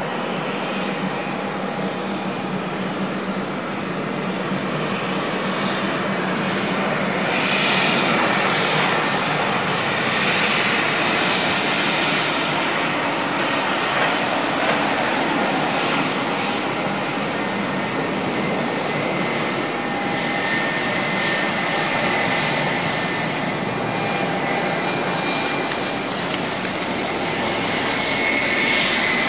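Jet engines of a taxiing Airbus A320 at low taxi power: a steady rushing noise with a thin high whine that grows stronger in the second half, swelling briefly near the end.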